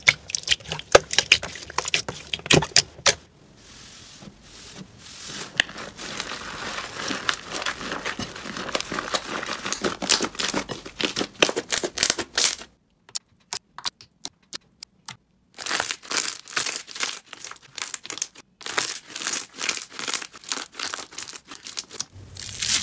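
Hands squeezing and kneading slime, making quick sticky pops and clicks. A denser, steadier crackling runs through the middle, then a short pause before the sharp popping starts again.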